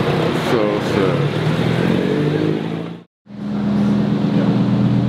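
Classic Alfa Romeo coupe's engine running as the car drives along, briefly rising in pitch early on. After a short dropout about three seconds in, a Lamborghini Huracán's V10 runs steadily at low revs.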